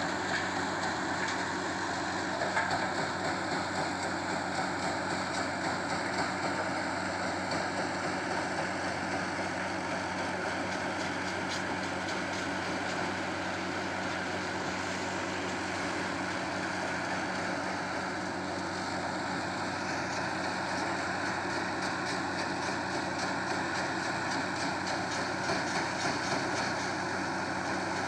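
Heavy quarry machinery running steadily: a constant low diesel hum under a dense, even noise, with no change in pace.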